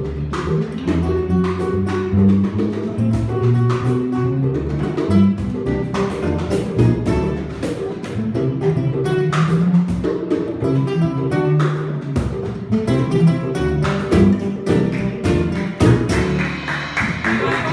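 Small Latin acoustic band playing an instrumental passage: acoustic guitar carrying the melody over a plucked electric upright bass and a cajón tapping out the beat.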